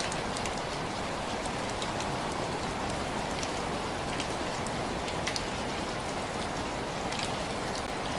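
Steady rain falling, an even hiss with scattered sharp drip ticks of drops hitting a surface.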